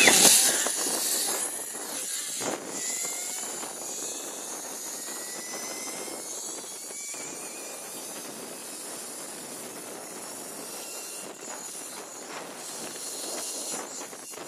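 Zip line trolley running fast down its steel cable: a steady whooshing hiss with a faint whine that rises in pitch over the first few seconds. It is loudest right at the start and settles within about two seconds.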